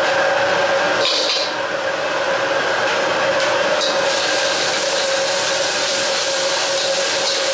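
Steady rush and hum of a high-flame gas wok burner and kitchen exhaust, with a metal ladle scraping and clinking in a carbon-steel wok as garlic and chili oil fry.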